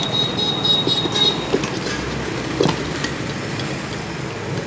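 Screwdriver prying at a ceiling fan's metal motor cover: irregular metallic clicks and scraping over a steady background rumble, with a high thin whine that stops about a second and a half in.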